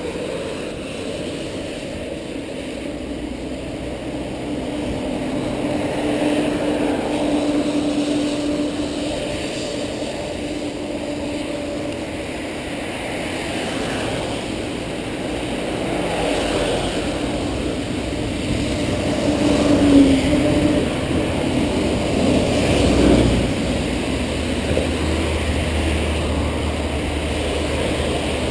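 Road traffic on a rain-wet road heard from a moving bicycle: a steady rush of passing cars with an engine hum, and two louder passes in the last third.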